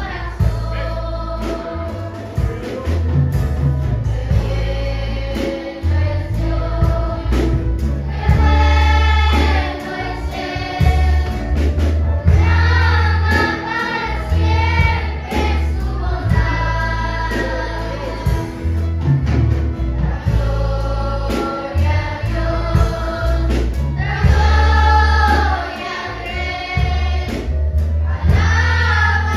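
Children's choir singing a Spanish-language Christian worship song over a backing of instrumental music with a strong bass line.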